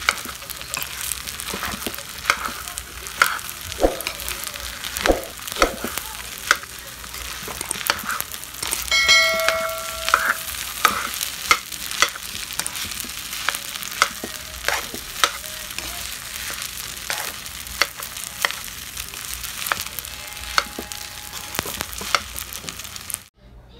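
Fried rice sizzling in a pan while a metal spoon stirs it, scraping and clicking against the pan many times over the steady frying hiss. A short ringing tone sounds about nine seconds in. The sound cuts off abruptly just before the end.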